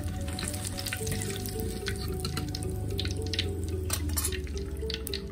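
Hot oil crackling and dripping as fried bird's-eye chillies and garlic drain in a perforated metal skimmer held over the wok, with a light metal clink about four seconds in. Background music plays throughout.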